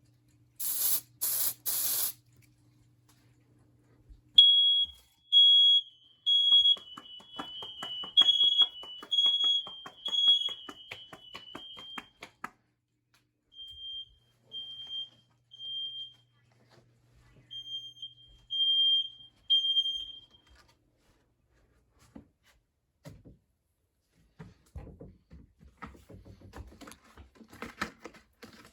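Three short hisses of aerosol smoke-detector tester spray (CRC Smoke test), then a smoke alarm sounding its temporal-three evacuation pattern: groups of three high beeps about a second apart with a pause between groups, stopping after about four rounds. For a few seconds a second beep, slightly lower in pitch, overlaps it. Handling rustle near the end.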